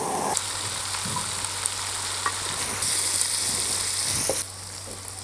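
Stir-fry of pork and pressed tofu sizzling in a hot wok, a steady hiss that grows louder about three seconds in and falls away shortly before the end.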